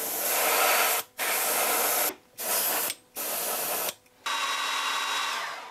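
Airbrush spraying paint: a hiss of air and paint in five bursts of roughly a second each, with short breaks between them. The last burst tails off near the end.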